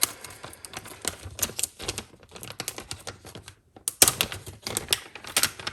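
Rapid, irregular clicks and taps of small plastic packaging being handled and opened, a thermal paste package with its syringe, manual and spatula, with a louder cluster of clicks about four seconds in.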